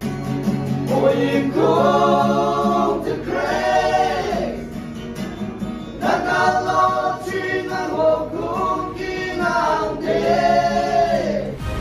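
A small mixed choir of men and women singing together in harmony, accompanied by an acoustic guitar. They hold long notes in phrases of a few seconds each.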